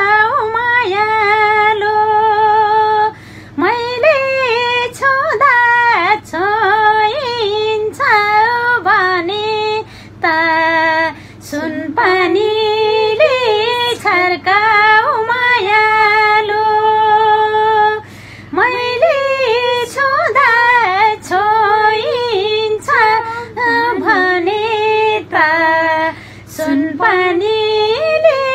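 A woman singing a Nepali song solo without accompaniment, holding long notes with wavering ornaments and pausing briefly between phrases.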